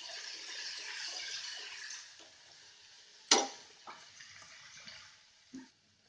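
Chopped tomatoes and onions sizzling in hot oil in a pan, a hiss that is strongest for the first two seconds and then dies down. A single sharp knock a little over three seconds in, followed by a few lighter ticks.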